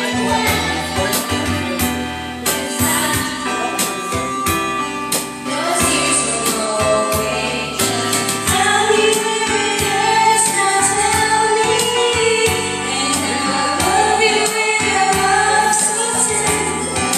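Women singing karaoke into microphones over a videoke backing track with a steady beat.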